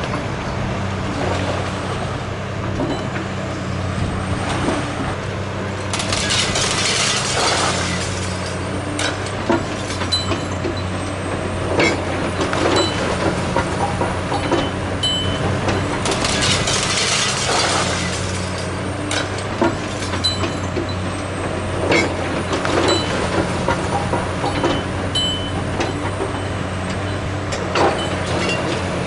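Caterpillar 345C hydraulic excavator's diesel engine running steadily as its demolition grapple tears into a brick wall. Bricks and rubble crash down in two longer spells, about six and sixteen seconds in, with many shorter knocks and a few short high squeaks of metal.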